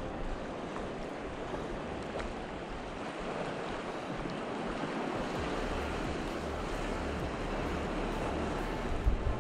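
Small sea waves washing, with steady wind. From about halfway through, wind gusts buffet the microphone in low rumbles, the strongest near the end.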